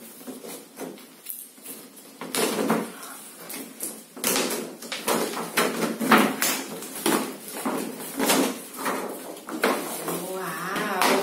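Crinkling and rustling of shiny plastic wrapping being pulled off doll boxes, in a run of sharp crackles. A young child's voice is heard near the end.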